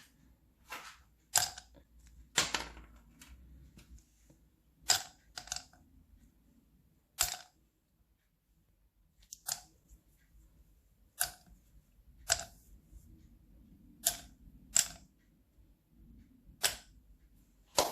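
Hard homemade cough drops clicking against one another and their container as they are handled: a series of sharp, separate clicks, often in pairs, about one every second or two.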